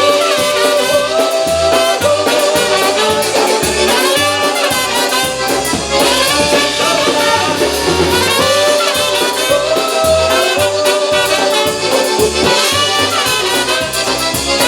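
Live polka band playing an instrumental passage of a pop song, with brass carrying the melody over a steady bass beat.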